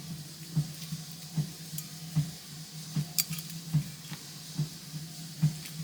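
Soft background music with a slow, even beat, about one pulse a second over a held low note, with light rustling and crinkling of packaging being handled.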